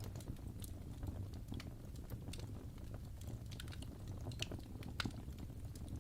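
Fire burning in a fireplace, crackling: irregular sharp pops and snaps over a steady low rumble.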